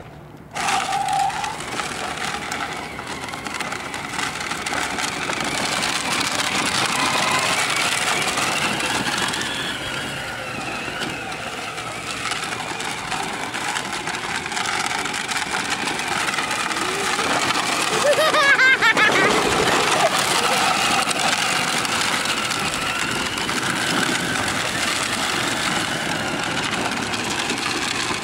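Small youth quad bike's motor running as the quad drives around, its pitch rising and falling with the throttle, loudest around two-thirds of the way through.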